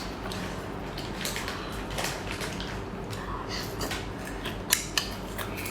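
Scattered light clicks and soft taps of seafood and utensils being handled at a plate, with two sharper clicks near the end.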